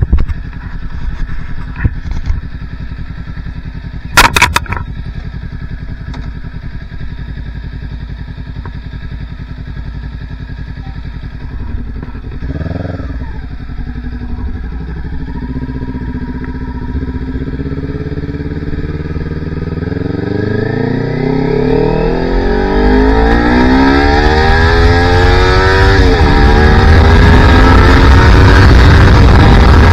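Sport motorcycle engine running steadily at low revs, then accelerating hard from about halfway through, its pitch climbing, dropping briefly at a gear change near the end, then climbing again. Wind noise builds as speed rises, and there is a sharp knock about four seconds in.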